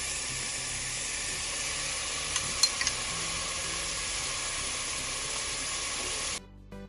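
Chicken pieces and blended onion frying in hot coconut oil in a pot: a steady sizzle with a few sharp clicks about halfway through. The sizzle cuts off abruptly near the end.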